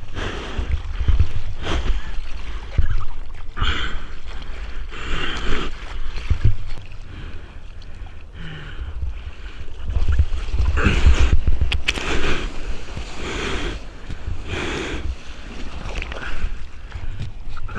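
Ocean water splashing and sloshing around a camera in the surf, in repeated rushes every second or two over a heavy low rumble of water against the housing.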